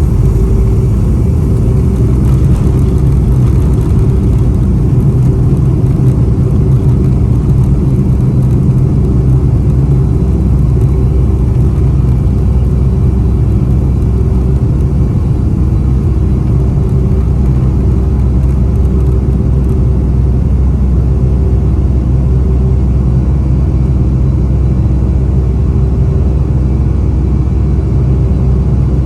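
Inside the cabin of a Boeing 757-232, its Pratt & Whitney PW2037 engines drone steadily at high thrust with a deep low rumble and a steady hum.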